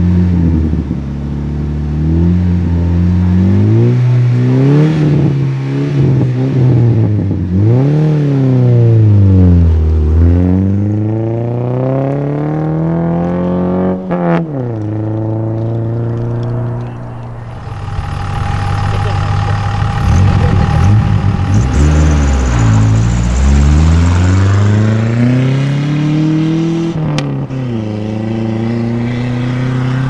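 Silver Dodge Neon rally car launching from the stage start at full throttle: the engine note climbs and drops several times as it shifts, then cuts off sharply about halfway through. After that another rally car's engine revs up and down close by, with a steady high whine on top.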